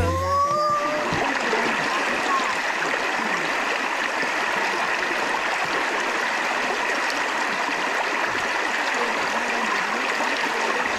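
Stream water rushing and gurgling steadily over rocks.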